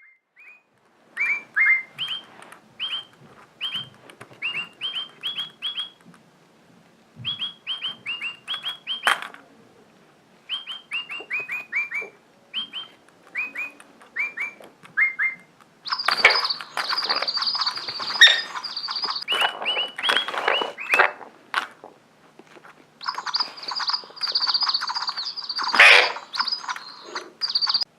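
Bird chirping from a pet bird and Digibird toy birds: phrases of short, quick, rising chirps repeated over and over, then from about halfway a louder, denser run of chirps over a steady high whistle, which breaks off and comes back a few seconds later.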